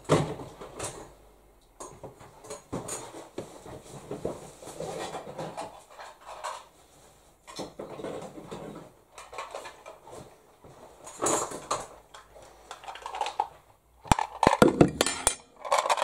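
Someone rummaging and handling household items while fetching a washing basket: irregular light clatters, knocks and rustling, with a busier run of clicks and knocks near the end.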